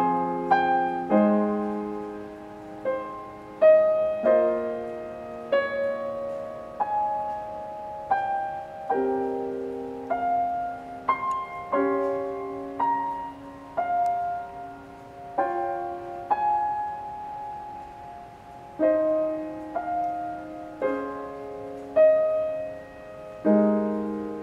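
Yamaha grand piano played solo in a slow improvisation: chords in the middle register struck about once every second or so, each left to ring and fade before the next.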